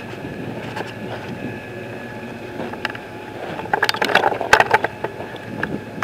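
Footsteps crunching over rocky, grassy ground as a carried camera jostles along, over a steady rumble of wind and handling noise on the microphone. A cluster of sharp clicks and crunches comes about four seconds in.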